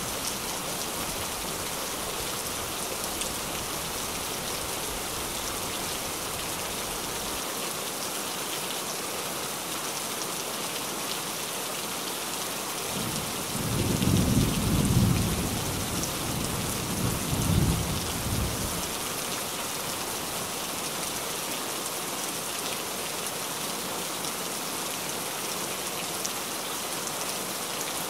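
Steady rain falling on a tin roof, with a low roll of thunder about halfway through that swells twice over some five seconds and then fades.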